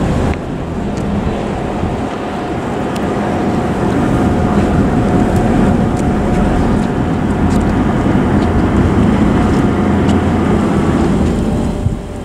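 Car ferry's engines and propellers running as it manoeuvres in to berth, a steady low rumble with churning water.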